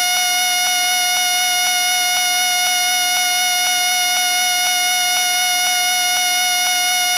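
A whistle held on one continuous, steady shrill tone, with a faint regular pulse about twice a second.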